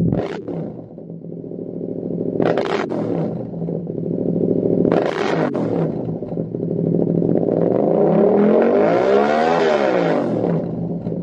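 Yamaha MT-07's 689 cc parallel-twin engine running through a Lextek CP8C carbon-fibre slip-on silencer, revved on the stand. It gives three short throttle blips a couple of seconds apart, then a longer rev that climbs in pitch and falls back to idle near the end.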